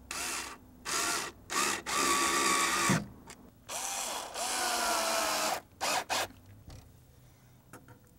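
Power drill driving screws through weather stripping into a door frame, run in about eight short bursts of the trigger with a motor whine that rises as some bursts start. The screws are only being tacked in loosely before final tightening.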